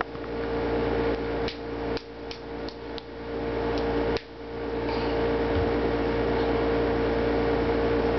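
A baby's small hands clapping, a quick run of sharp claps in the first half, over a steady background hum with a constant mid-pitched tone.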